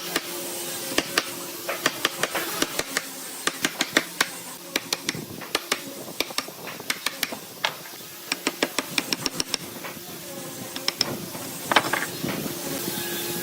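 Irregular sharp taps and knocks in woodworking, at times in quick runs of several a second, over a steady low hum.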